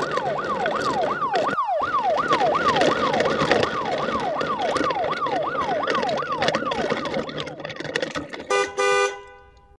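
Siren sound effect: a rapid falling wail repeating about three times a second over a steady traffic-like rumble, followed near the end by a car horn honking twice before the sound fades out.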